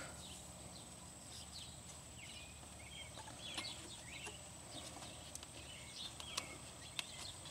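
Faint outdoor background: scattered short bird chirps over a steady high-pitched whine, with a few faint clicks.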